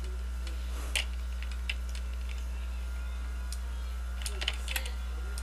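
A few short, sharp clicks from computer input while drawing, one about a second in and a small cluster near the end, over a steady low electrical hum.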